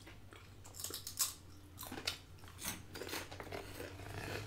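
Crunchy Flamin' Hot Cheetos being bitten and chewed close to the microphone: a series of sharp, irregular crisp crunches.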